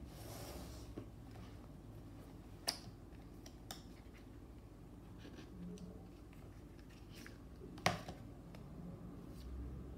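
Cardboard packaging being handled: a soft rustle and slide of card at the start, then a few sharp taps and clicks as pieces are opened and set down on the table, the loudest about eight seconds in.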